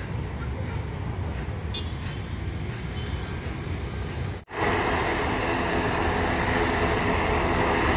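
Aircraft engines running, a steady noise with no clear rhythm. About halfway through, the sound cuts out for an instant and comes back louder and brighter.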